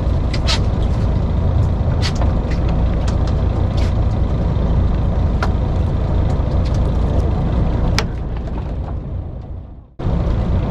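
Fishing boat's engine running with a steady, loud low rumble and scattered sharp clicks. The sound fades out from about eight seconds in, then returns abruptly at the same level.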